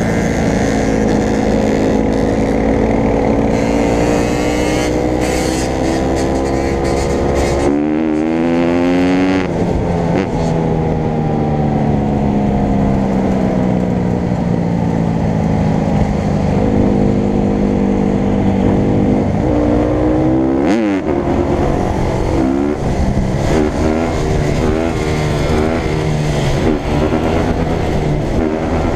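Dirt bike engine running close to a helmet camera, its revs climbing and falling as the rider accelerates and shifts. A quick sharp rev rises and drops about two-thirds of the way through, and the revs flutter up and down near the end.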